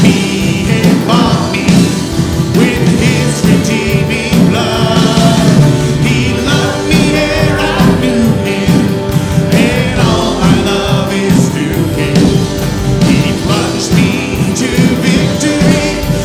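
Live worship band playing a song: several voices singing together over acoustic guitar, electric guitar and keyboard, loud and continuous.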